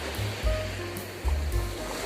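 Background music with a deep bass line and a few short held notes, over the steady hiss of surf washing on the beach.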